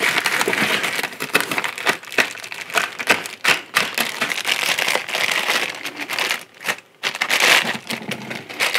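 Small clear plastic bags crinkling and crackling as they are handled and worked open to free the kit parts, in quick irregular rustles with a brief pause near the end.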